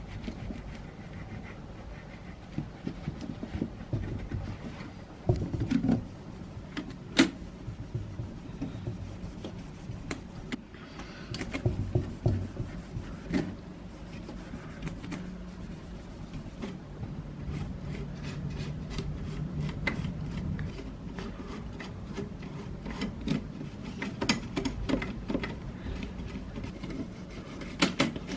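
Rubbing and scrubbing on the casing and parts of a Silver-Reed 1200CR electric typewriter as it is cleaned of dust and grime, with many scattered clicks and knocks of the parts being handled.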